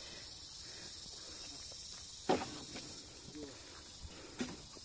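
Steady high-pitched insect chorus, with a sharp knock about two seconds in and a smaller one near the end.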